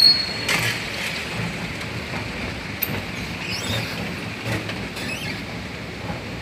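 Steady background noise of a large airport terminal hall heard through a handheld phone's microphone while walking, with rustling and handling noise. A short high beep sounds right at the start.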